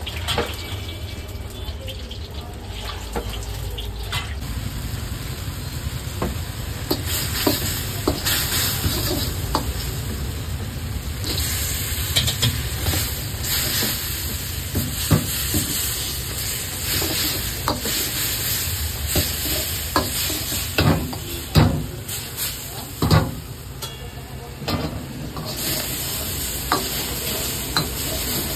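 Chicken sizzling in a black iron wok while a metal ladle scrapes and knocks against the pan as the chicken is stir-fried, under the steady low rumble of a gas burner. The sizzle grows brighter about a quarter of the way in, and the loudest ladle knocks come about three quarters through.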